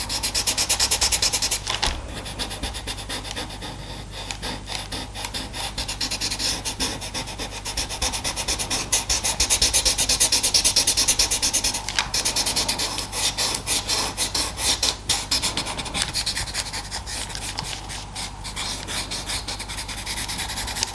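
A paper blending stump rubbed over pastel pencil on Pastelmat paper in quick, repeated strokes, blending a base layer smooth.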